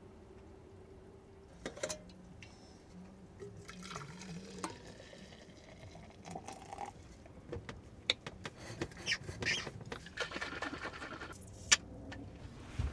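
Coffee being made: liquid poured and trickling, with scattered light clicks and knocks of cups and utensils.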